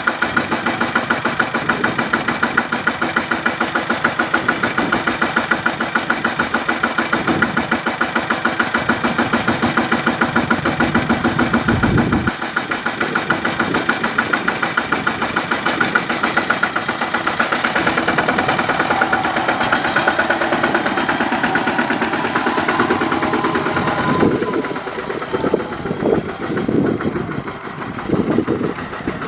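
Small Kubota single-cylinder diesel tractor engine running with a rapid, even beat. In the last few seconds the running turns uneven, dipping and surging several times.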